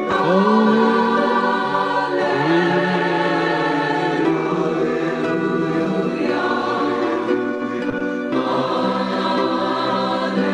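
Music of choir-like voices holding long, sustained notes, with a few sliding notes near the start and about two and a half seconds in.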